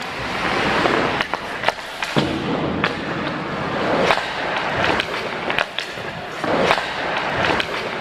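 Ice hockey skates scraping and carving on the ice, with sharp knocks of sticks and the puck scattered through it.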